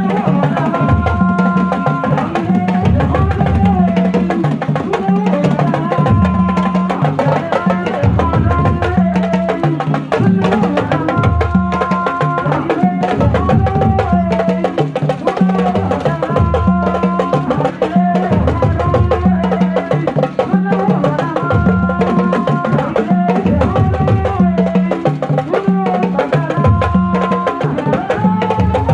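Music with a steady drum beat and a short melodic phrase that repeats every two to three seconds.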